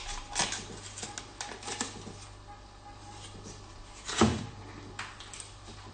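A knife scraping and clicking against a butter wrapper as butter is cut from it, then one knock about four seconds in as the butter goes into the wok.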